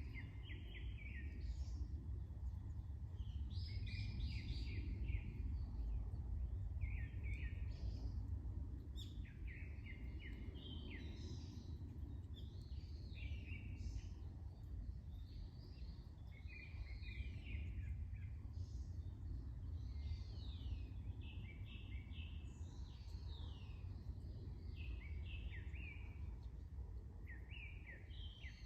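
Small songbirds chirping outdoors in short runs of quick, falling notes, one run every second or two, over a steady low rumble of wind and ambient noise.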